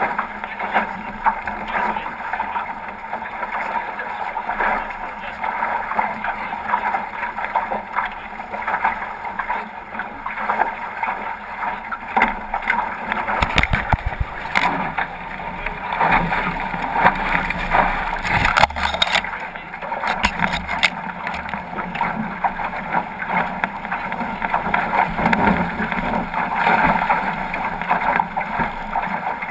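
Water rushing and splashing along the hull of a 505 racing dinghy sailing fast through chop, heard from on board, with wind buffeting the microphone. Heavier low rumbles of wind and spray come about halfway through.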